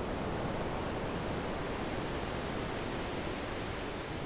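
Algorithmically generated ocean sound from a Max/MSP patch: a steady, even rush of filtered noise like distant surf, fuller in the low and middle range than at the top. This is the installation's idle sound, heard when none of the bottle sensors is triggered.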